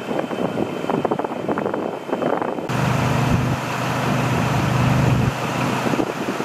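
Vehicle noise with a rough crackle of wind on the microphone. About three seconds in, this changes to a steady low engine hum with a few even overtones, which weakens after about five seconds.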